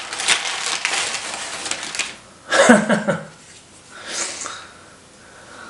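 Sheets of paper rustling and crinkling as they are handled, for about two seconds, followed by a man's brief laugh.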